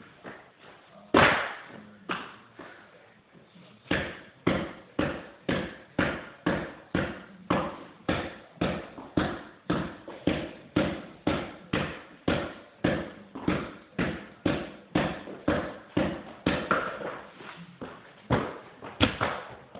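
Basketball dribbled on a hardwood floor: one hard bounce about a second in, then a steady run of bounces, about two to three a second.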